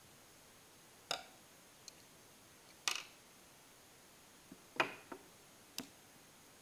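A handful of light, separate clicks and taps, about six in all, the loudest a little before five seconds in, as a pen and a pencil are picked up and handled on a tabletop.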